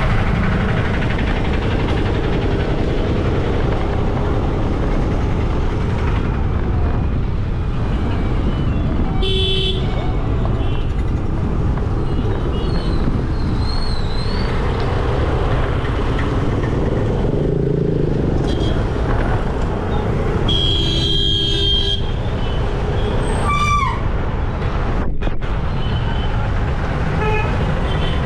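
Steady wind and road noise of riding a scooter in traffic. Vehicle horns honk briefly twice, about a third of the way in and again about three quarters through.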